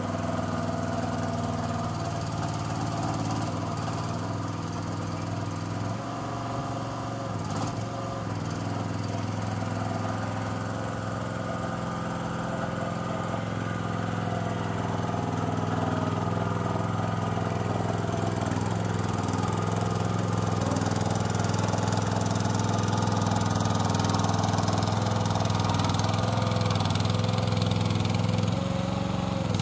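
Engine of a tracked hydraulic mini dumper running steadily as it works through mud, growing louder in the second half as the machine comes closer.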